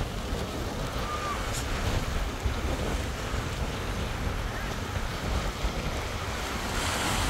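Steady wash of ocean surf breaking on the beach, with wind buffeting the phone's microphone in low rumbles.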